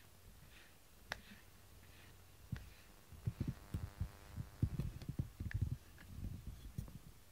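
A cat rubbing its head and fur against the camera's microphone: scattered low thumps and brushing, bunched into an irregular run of bumps in the second half.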